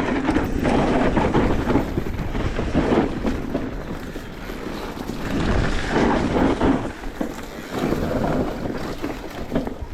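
Wind buffeting the microphone in gusts, a rough rushing noise that swells and eases.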